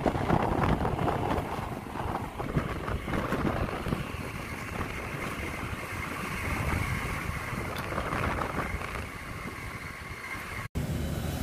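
Wind buffeting the microphone over a steady low rumble, broken by an abrupt cut shortly before the end.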